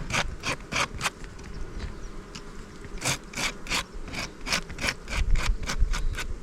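Beehive woodwork being scraped: quick rasping strokes, about three a second, in two runs with a short pause between, as wax and propolis are scraped off the wooden frame parts before a frame is added.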